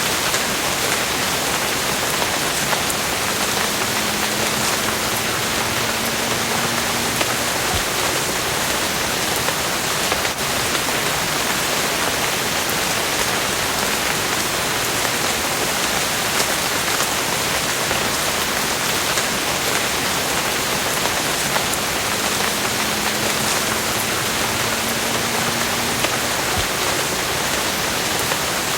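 Steady rain falling, an even hiss of drops on surfaces with no break. A faint low hum, rising slightly in pitch, comes in twice: a few seconds in and again near the end.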